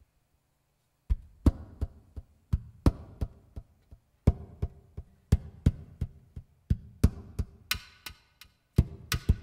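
Acoustic guitar body played as a drum: the flat of the hand slaps and taps the top and sides, giving deep thumps and sharper clicks in a rhythm of about three hits a second. It starts about a second in and grows denser over the last couple of seconds.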